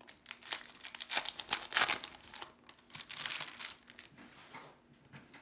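A 2017 Topps Fire foil card pack wrapper being torn open and crinkled in the hands, a run of crackling rustles that fades out after about three and a half seconds.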